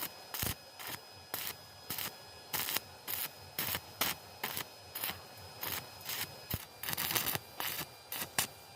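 Stick-welding arc on thin steel at about 60 amps, crackling in short bursts about two to three times a second, the arc repeatedly struck and broken to build up a gap without burning through the thin metal.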